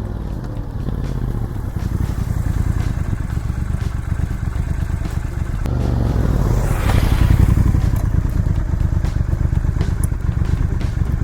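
Triumph Scrambler 1200XE's 1200cc parallel-twin running through a decat open exhaust with no catalyst, heard from a microphone on the bike while riding: a deep, rumbling exhaust note that swells to its loudest about seven seconds in.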